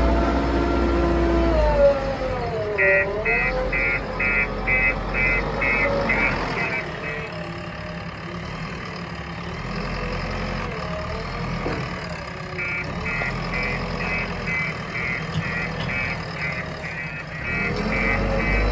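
JCB 3DX backhoe loader's diesel engine running, its pitch dipping and rising again about two seconds in as it works. Its reversing alarm beeps steadily, about two to three beeps a second, for some four seconds starting about three seconds in, and again through the last third.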